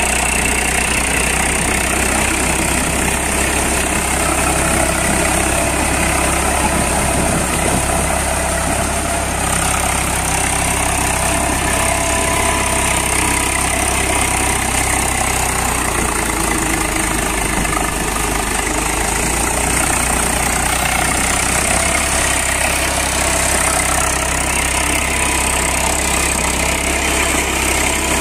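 Eicher 380 tractor's diesel engine running steadily under load, driving a rotavator through wet paddy mud.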